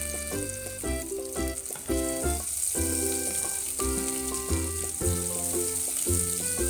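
Food frying in hot oil in a pan, a steady sizzle, over background music.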